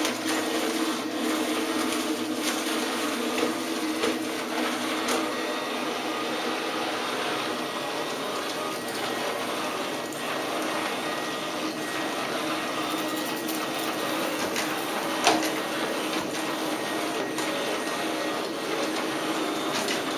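Robot vacuum cleaner running steadily, a motor hum over an even hiss. There are a few light knocks, with a sharper one about three-quarters of the way through.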